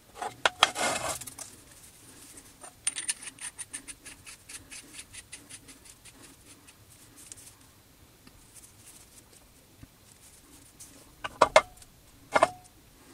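Steel spindle parts of a tool and cutter grinder being handled on a metal vise and bench. A clatter of metal clicks comes at the start, then a run of light ticks that slows and fades over a few seconds. Near the end come a few sharp metal knocks with a short ring as the spindle is set down on the vise.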